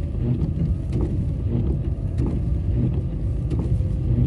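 Road noise inside a moving car on a wet, snowy road: a steady low rumble of tyres and engine, with a few faint ticks.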